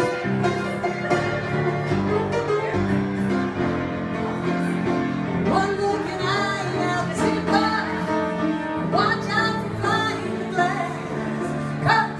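Live piano accompaniment with a woman singing into a microphone, her voice coming in about halfway through.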